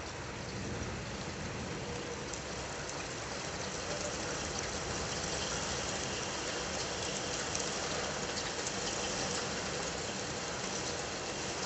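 Steady rain: a dense hiss with the patter of individual drops, slowly growing louder.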